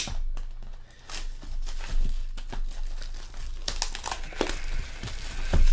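Clear plastic shrink-wrap being torn off a sealed box of trading cards and crinkled by hand, in irregular rustling, tearing bursts.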